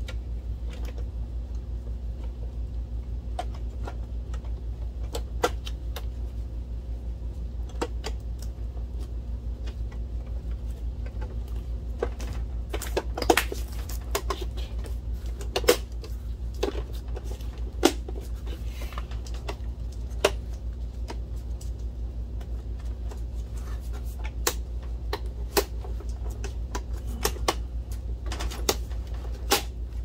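White plastic housing of an Optoma HD28DSE projector being fitted and pressed back together by hand: scattered plastic clicks and knocks, busiest in the middle and again near the end, over a steady low hum.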